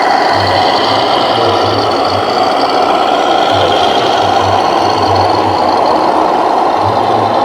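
Radio-controlled model trucks and construction machines running: a steady mechanical whir from small motors and gearboxes, with a low engine-like hum that cuts in and out irregularly.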